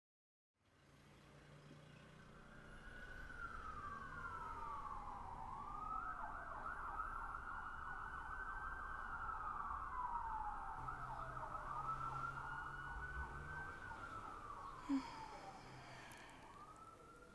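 A siren wailing faintly, its pitch sweeping slowly up and down again and again, fading in after a moment of silence. A single short soft knock comes near the end.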